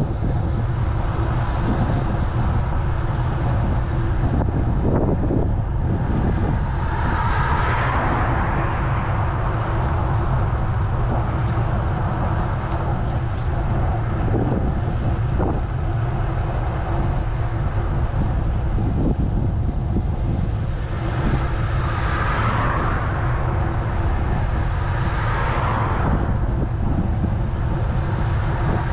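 Steady low wind rumble on the microphone of a camera riding on a moving road bicycle. Cars swell past in the opposite lane three times: about eight seconds in and twice more, a few seconds apart, near the end.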